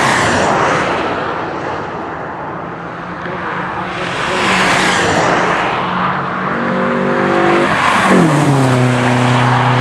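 Three cars pass at speed on a racetrack one after another, each a swelling rush of engine and tyre noise. The last, a silver Nissan Sentra, passes close: its engine note rises, falls sharply in pitch as it goes by, then holds steady as it pulls away.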